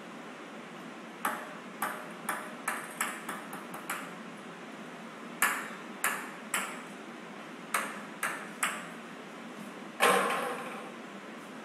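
Small hard balls bouncing on a hard floor: three runs of sharp pinging clicks, the gaps shortening as each bounce dies away. About ten seconds in comes a louder single knock with a longer ring.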